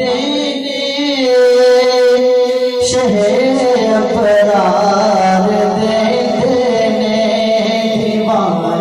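A man's solo voice singing a naat, a devotional chant, in long held, ornamented notes through a microphone and PA.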